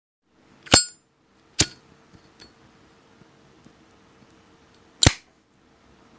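Zippo lighter's metal lid flicked open with a ringing metallic clink, a second, weaker click about a second later, and the lid snapped shut with another loud clink about four seconds later.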